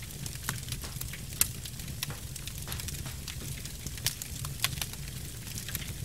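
Log fire crackling: irregular sharp pops and snaps, the loudest about a second and a half in and about four seconds in, over a steady low rumble.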